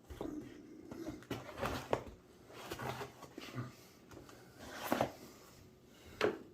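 Knife cutting through the tape of a cardboard shipping box while the box is handled: scattered scrapes, clicks and knocks, with a few sharper knocks about two, five and six seconds in.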